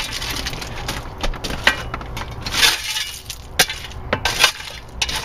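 Broken shale stone clattering and clinking in an irregular string of sharp knocks as it is shoveled and tossed onto the pile, the loudest knocks in the second half.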